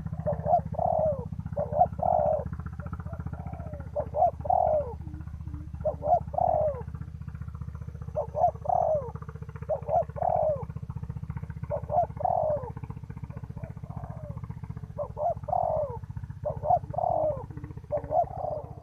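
Spotted dove cooing over and over, each call a group of two or three short notes falling in pitch, repeated about every two seconds. A steady low drone runs beneath the calls.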